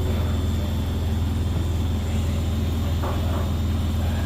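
Beko WS832425S washing machine spinning at high speed, around 1,200 RPM, with a steady loud low rumbling; the load is extremely unbalanced.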